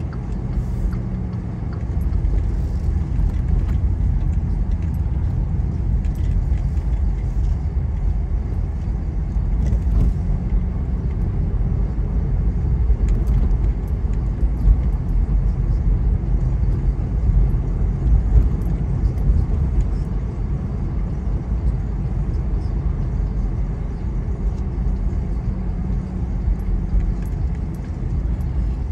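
Car driving along: a steady low rumble of engine and tyres on the road, swelling and easing slightly.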